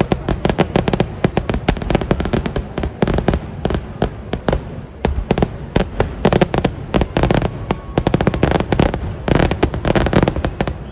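Festival fireworks going off in a dense, continuous barrage of bangs, many a second without a break, louder clusters coming every second or two.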